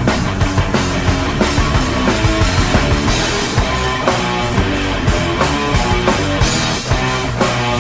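Background rock music with a steady drum beat and guitar.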